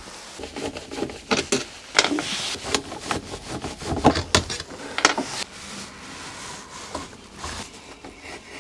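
Irregular clicks, knocks and scrapes of hand tools and a double-socket faceplate as the faceplate is unscrewed and handled, with small screws set down.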